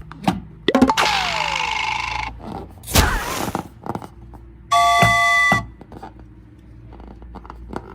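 A string of short cartoon sound effects: a falling whistle with a hiss about a second in, a sharp hit around three seconds, and a bell-like chime for about a second near the middle, then a low steady hum.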